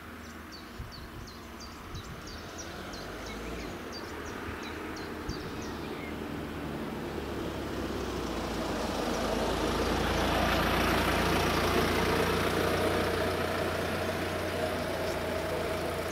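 A car's engine and tyres drawing up close and slowing to a stop, the noise growing louder over about ten seconds and easing slightly at the end. A bird chirps rapidly and repeatedly through the first half.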